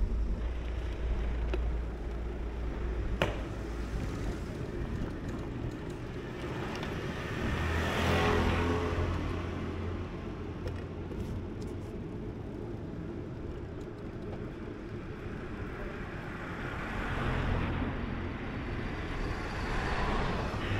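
Street traffic heard while moving along a town road: a steady low rumble of road noise, with vehicles passing about eight seconds in and again around seventeen seconds. A single sharp click about three seconds in.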